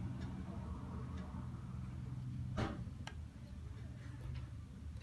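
Small plastic clicks as a Nokia 106 phone's housing is handled and snapped back together: a few faint ticks, then one sharper click a little past halfway and a smaller one just after. A steady low hum runs underneath and weakens about three seconds in.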